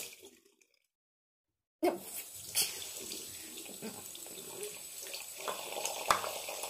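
Water running from a tap into a sink, starting about two seconds in, with a few sharp knocks of handling at the basin.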